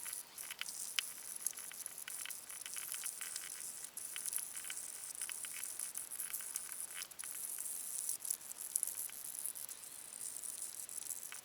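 Sandpaper scratching against the rubber of a large RC car tire: a dense, irregular scratchy hiss with many small crackles.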